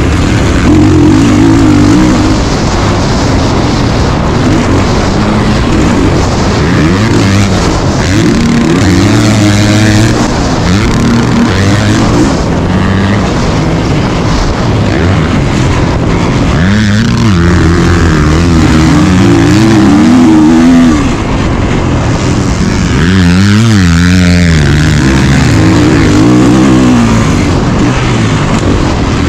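A 2022 Kawasaki KX450's single-cylinder four-stroke engine heard onboard under race throttle, its pitch climbing and dropping again and again as the rider accelerates, shifts and backs off through the corners.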